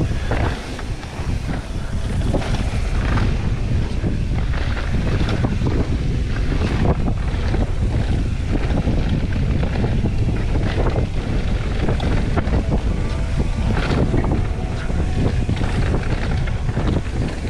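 Rushing wind on the microphone of a mountain bike's body-worn action camera during a fast ride over a dirt trail. Mixed in are tyres rolling on dirt and frequent clicks and rattles from the bike jolting over bumps.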